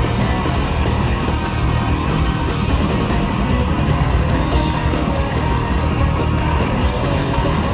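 Punk rock band playing live and loud: distorted electric guitars, electric bass and a fast drum kit, with the singer's lead vocals.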